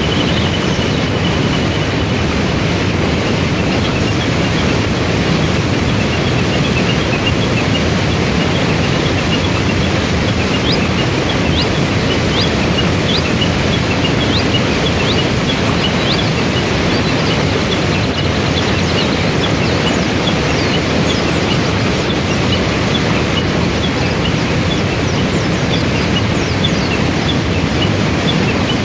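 Steady rushing of a waterfall and rapids pouring over rocks, with small birds chirping over it, more often from about ten seconds in.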